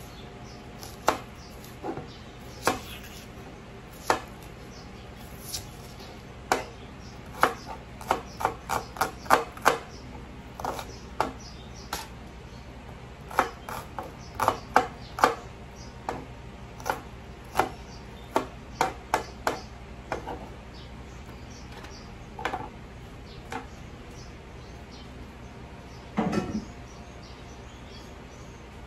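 Ceramic knife slicing a red onion on a plastic cutting board: irregular sharp knocks of the blade hitting the board, often in quick runs of several cuts, with pauses between.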